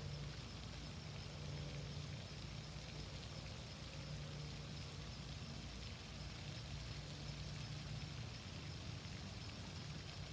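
Faint, steady outdoor ambience of a stream's running water, with a low steady hum underneath.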